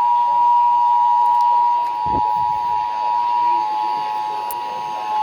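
Emergency Alert System two-tone attention signal: two steady tones near 853 and 960 Hz sounding together, announcing an emergency alert message. A short low thump falls about two seconds in.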